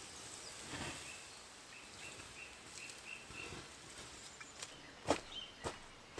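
Small birds chirping in woodland, a run of short repeated high notes, with a few sharp knocks near the end, the loudest about five seconds in.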